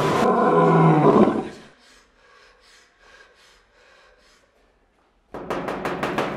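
A girl screaming loudly, her voice wavering, for under two seconds before it cuts off abruptly. Near the end comes a quick run of sharp knocks on a door.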